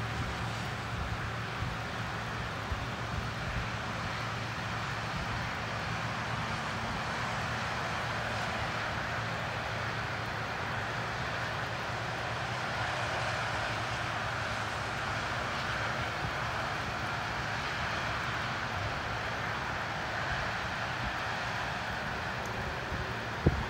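Steady outdoor background rumble and hiss, with a low hum that fades out about halfway through, and a single sharp knock near the end.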